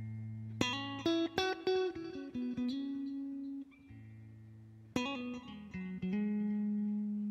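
Line 6 Variax electric guitar played through a Line 6 Helix modeller, picking the song's intro. A quick run of plucked notes comes about half a second in and gives way to ringing held notes. A new chord is struck about five seconds in and left to ring.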